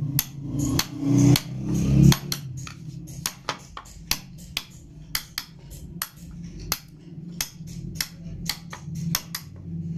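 Wood-carving chisel being tapped into a relief-carved wooden panel: sharp, irregular taps, about two or three a second. Underneath runs a low steady hum that swells loudest in the first two seconds.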